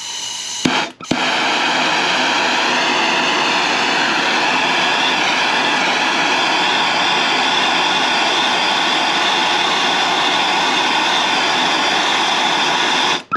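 Plumber's gas torch heating a copper pipe joint for soldering: the gas comes on with a hiss, a couple of sharp clicks about a second in as it lights, then a steady loud rushing flame that cuts off suddenly near the end.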